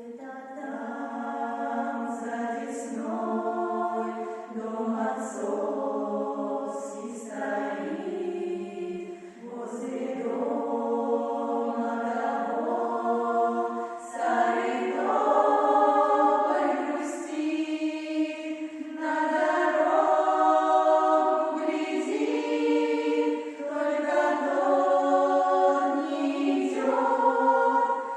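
A choir singing, several voices together in held chords that change every second or two.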